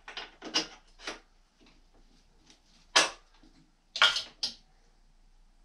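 Several short knocks and clatters of hard objects being handled, the two loudest about three and four seconds in.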